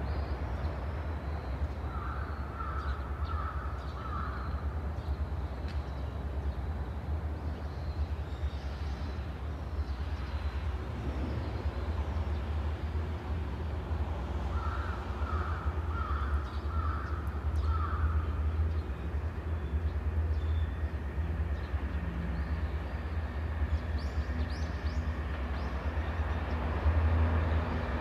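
A crow cawing in two runs of about four caws, a couple of seconds in and again about fifteen seconds in, over a steady low rumble. A low hum grows louder near the end.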